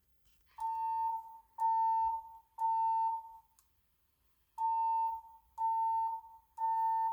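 Fire alarm speaker strobe (EST Genesis ceiling-mount) sounding the temporal-three evacuation tone: three steady beeps about a second apart, a pause, then three more. This is the alert tone of a Siemens Firefinder XLS voice evacuation system, set off by pulling the pull station.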